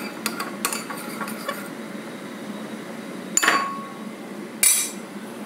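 Metal spoon clinking and scraping against a ceramic bowl as a sauce is stirred, light clicks at first. Then two sharp knocks about a second apart near the end, the first ringing briefly.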